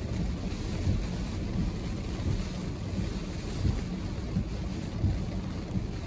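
Storm wind gusting against a car with rain on the windshield, heard from inside the cabin as a low, uneven rumble.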